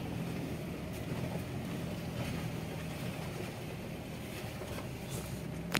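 Mahindra Thar's engine running steadily, heard from inside the cabin, with a sharp click near the end.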